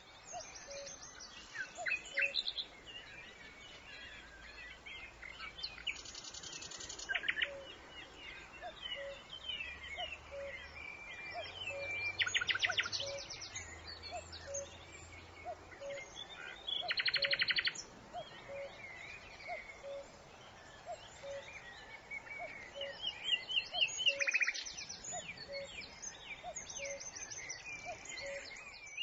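Several songbirds calling and singing, with many short chirps and whistles and four or five fast trills lasting about a second each. Under them, a faint low note repeats about once a second.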